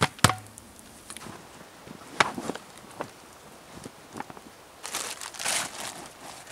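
Gear being packed into a canvas backpack: scattered clicks and knocks, then a burst of crinkling rustle about five seconds in. Two loud sharp clicks come right at the start.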